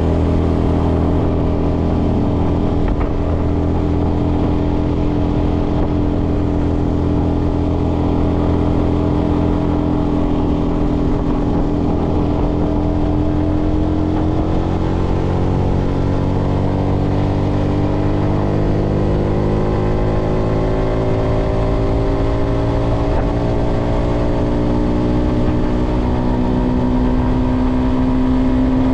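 Yamaha XSR125's single-cylinder 125 cc four-stroke engine running on the move. Its note holds steady at first, then rises slowly and evenly in pitch over the second half as the revs climb.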